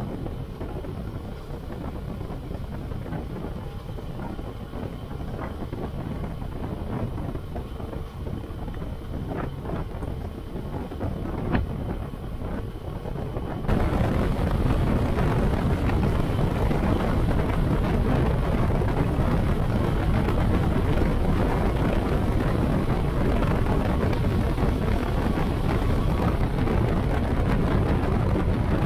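Motorcycle on the move: engine running under a steady rush of wind on the microphone. About halfway through the wind noise suddenly gets louder and stays so.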